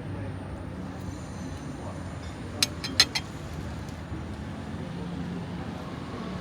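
Outdoor town-square ambience: a steady low rumble of distant traffic, with a quick run of four sharp knocks about halfway through.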